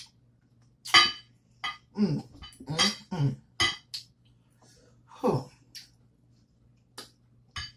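Cutlery clinking and knocking against dishes while eating: about a dozen short, irregular clicks and clatters.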